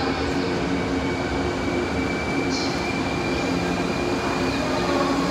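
The Royal Express, an electric multiple-unit train, rolling past along a station platform: a steady rumble of wheels and running gear, with a thin high squeal from about a second and a half to four seconds in.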